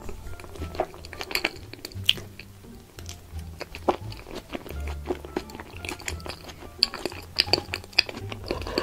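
Close-miked chewing of soft, sauce-covered animal fries: a stream of wet mouth clicks and smacks, over background music.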